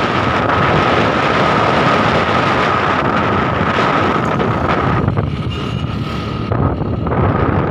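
Wind rushing over the microphone of a moving motorcycle, over its steadily running engine and a steady high whine. About five seconds in, the hiss thins and a deeper buffeting rumble takes over.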